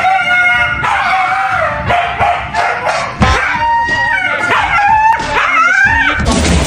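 Siberian husky howling and yowling without pause in a string of wavering calls that slide up and down in pitch, complaining while being bathed.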